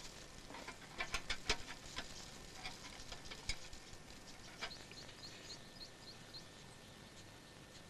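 A hand tool taps and clicks sharply against a metal bar, several times in the first few seconds. Then a bird chirps in a quick series of short, high notes.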